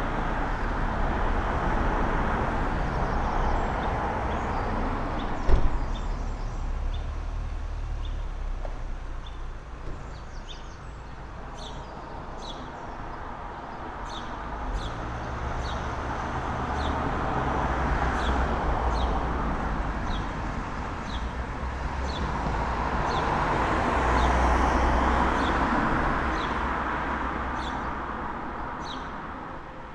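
Cars passing on a town street one after another, each swelling and fading, over a low traffic rumble, with small birds chirping in quick short notes above them. A single sharp knock about five seconds in.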